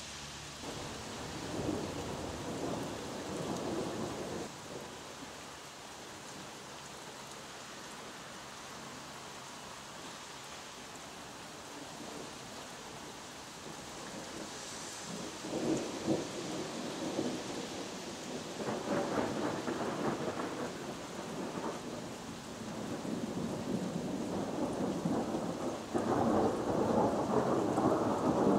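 Thunder rolling over a steady hiss of rain: a rumble a couple of seconds in, more rolls past the halfway mark, and a longer, louder rumble building near the end.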